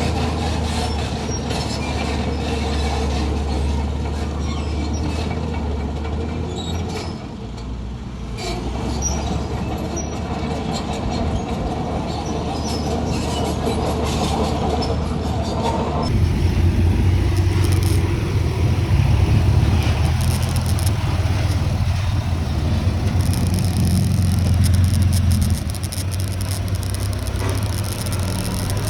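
Diesel engines of heavy construction machinery running under load, with metallic clatter and squeaks. About two-thirds of the way in, the sound changes abruptly to a deeper, heavier engine drone.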